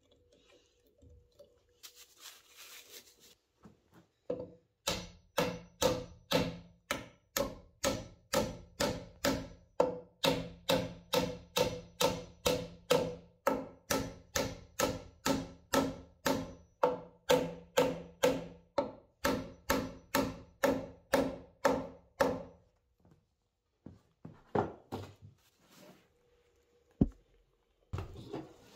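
A hammer driving glued wooden dowels into a pine stair part: a long run of steady, evenly spaced blows at about two and a half a second, each a ringing knock. It stops about three quarters of the way through and is followed by a few scattered softer knocks.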